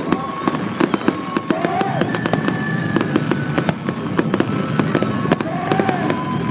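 Fireworks display: a dense run of crackling and popping shell bursts, many a second, going on without a break.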